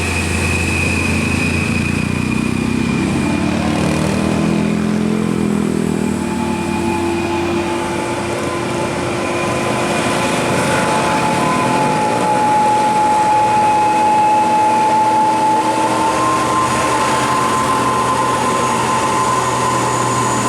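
Large tour buses passing on a road: a steady engine and road rumble with a long, high whine whose pitch drops partway through.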